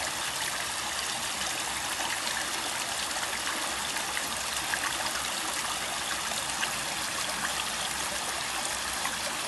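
Steady trickle of running water, with many small splashes and drips over it.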